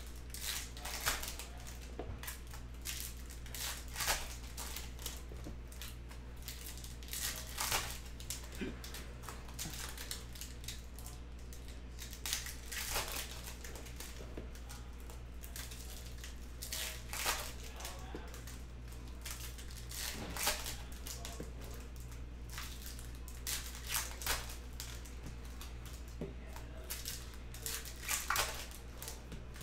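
Foil wrappers of 2021 Topps Chrome Formula 1 trading-card packs crinkling as they are torn and handled, with cards shuffled between the fingers, in short rustles every second or two over a steady low hum.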